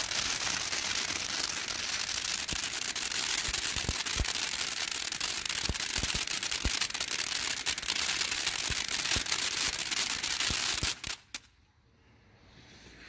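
Sky Bacon Fireworks' American Forever ground fountain burning: a steady hiss of spraying sparks with many sharp crackling pops. About eleven seconds in it cuts off suddenly after a few last pops, falling almost to silence as the spray dies down.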